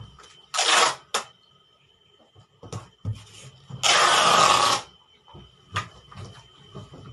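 Packing tape pulled off the roll in rasping strips onto a cardboard box. There is a short pull about half a second in, a quick one just after it, and a longer pull of about a second near the middle, with light knocks and taps of handling the box in between.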